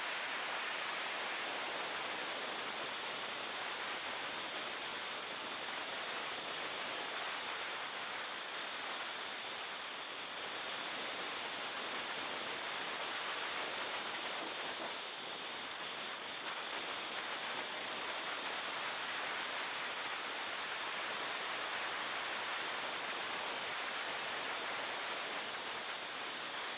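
Steady rushing noise from a BMW E36 M3 at race speed, as picked up by an in-car camera microphone. The wind and road rush covers everything, and no clear engine note stands out.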